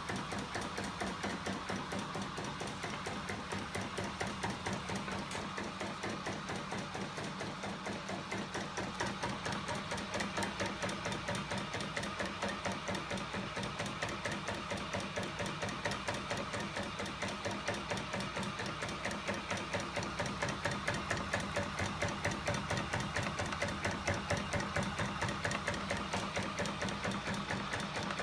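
Home-built crankshaft-and-linkage 'magnet engine' (ornithopter engine) running fast: a steady, rapid, even mechanical clatter from its swinging arms, springs and spinning flywheels, growing a little louder in the second half.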